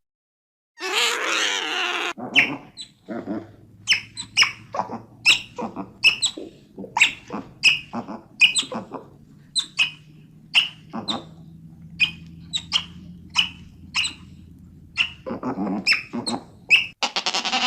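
Otter calling: a rough squealing call, then a long run of short, sharp high-pitched chirps about two a second, and another squealing call near the end.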